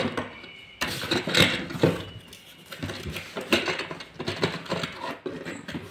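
Hands rummaging in a cardboard box, with hard plastic toy parts knocking and scraping against the cardboard as a plastic wing piece is pulled out. The handling comes as irregular knocks and rustles, with a sharper knock about a second in.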